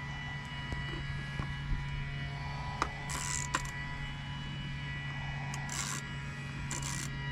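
Hand work on a pickup's seatbelt retractor: a few sharp clicks and short rasping bursts, three or four of them in the second half, over a steady low hum.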